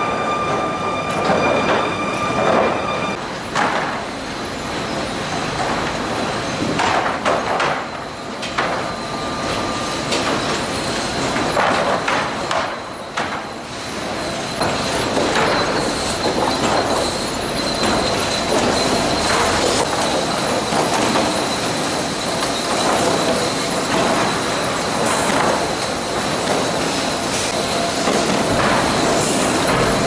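Sawmill lumber-handling machinery running: chain conveyors clattering as boards ride through, with repeated knocks of boards and a high metallic squeal. A steady whine sounds for the first few seconds, then stops.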